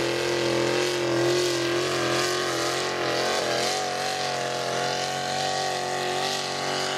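Lifted pickup truck's engine held at steady revs under heavy load as it drags a school bus, its pitch wavering only slightly.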